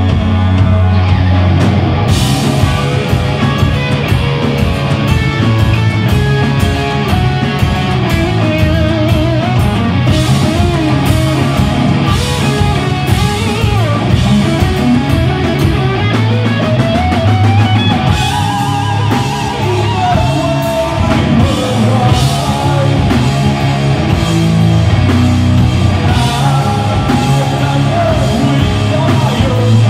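A rock band playing live, with distorted electric guitars, bass guitar and a drum kit; the drums and cymbals come in about two seconds in and keep a steady beat.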